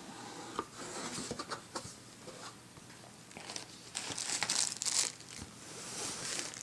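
Cardboard box being opened and handled: scattered small knocks and scrapes of the flaps and rustling, crinkling packing, louder about four to five seconds in.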